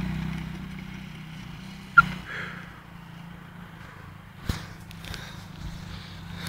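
Motors of small ride-on vehicles humming steadily, fading as they drive off. A sharp click comes about two seconds in and another about four and a half seconds in.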